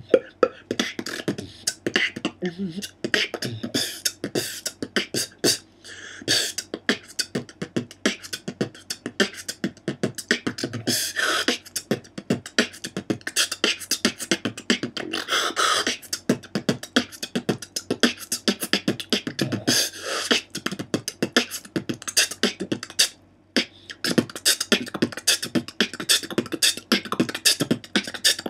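Beatbox freestyle built from the three basic sounds only, the bass kick, hi-hat and rim shot, in a fast, steady groove without vocal bass or special effects. There is a brief break about 23 seconds in.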